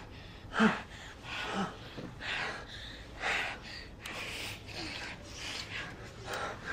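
Gasping, heavy breathing: short, noisy breaths about once a second, a few with a brief voiced catch.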